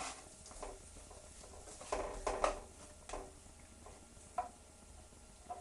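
A utensil stirring vegetables in a non-stick frying pan: a few short scrapes and taps against the pan, clustered about two seconds in, then single taps about three and four and a half seconds in.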